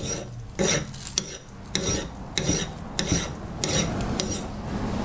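Steel hand file rasping across the side of a rusty hatchet head, smoothing down the hammered-out sides, in even strokes a little under two a second. The strokes stop near the end.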